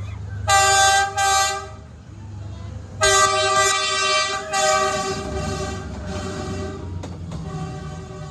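Train horn sounding as the train passes: two short blasts about half a second in, then a long blast about three seconds in that trails off. A low rumble from the passing train runs under the horn and grows toward the end.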